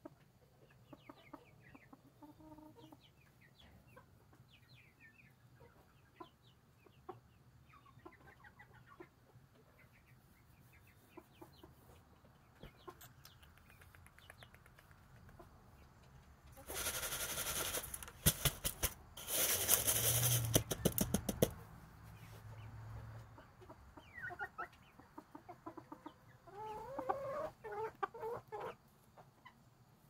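Silkie chickens clucking softly off and on, with a livelier run of clucks near the end. About halfway through, a few seconds of loud rustling noise drowns them out.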